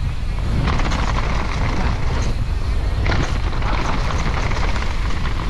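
Steady low wind rumble over the mountain biker's camera microphone, mixed with tyre and bike noise from riding fast downhill on a dirt jump line.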